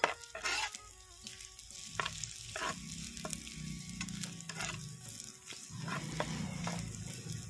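Sliced onions sizzling in hot oil in a clay pot while a metal spoon stirs them, the spoon scraping and knocking against the pot several times.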